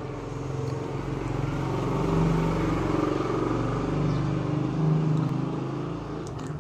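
A motor vehicle engine running steadily, its pitch wavering up and down a little.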